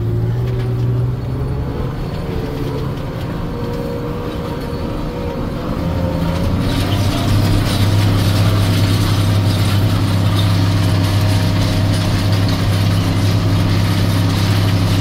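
Farm tractor engine running, heard from inside the cab with a gear whine and mechanical rattle. About six seconds in, the engine note gets louder and fuller as it takes up the load of the vibrocultivator working frozen ground.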